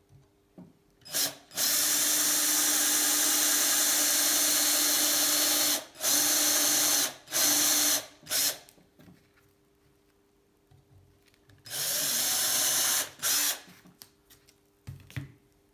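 Electric drill boring the last marked holes in a bicycle seat post, running in bursts: a long run of about four seconds, three short bursts, a pause, then another run of over a second.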